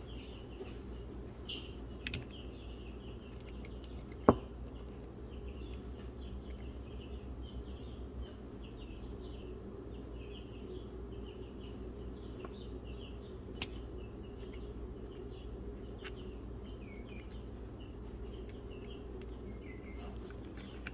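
Small birds chirping steadily in the background over a low, steady hum, with a few sharp metal clicks from handling a chainsaw crankshaft and connecting rod; the loudest click comes about four seconds in.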